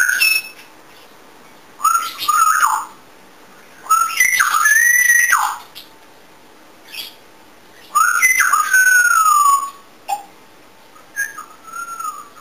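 African grey parrot whistling in four short bursts of gliding notes with a raspy edge. The longest burst, about two-thirds of the way through, ends in a drawn-out falling whistle.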